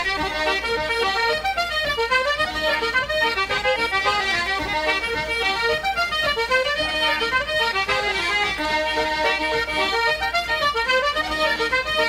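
An Irish traditional tune played as a duet on button accordion and concertina, with quick, ornamented notes at a steady dance rhythm.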